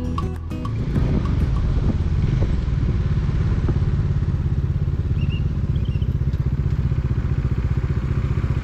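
Motorcycle engine running at a steady road speed while riding, its exhaust beat pulsing fast and even.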